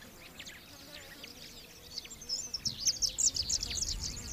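Birds chirping: many short, high calls in quick succession, getting busier in the second half. A low rumble comes in about three seconds in.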